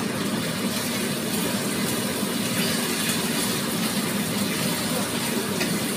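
Food sizzling in a hot wok as it is stir-fried, a steady hiss over a constant low hum.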